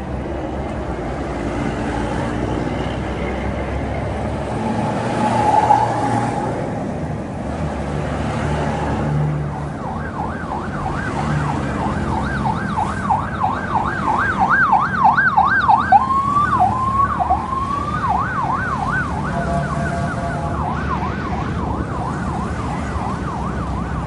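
Police escort siren yelping in fast rising-and-falling sweeps, about three a second, starting about ten seconds in, over the rumble of passing coaches and motorbikes.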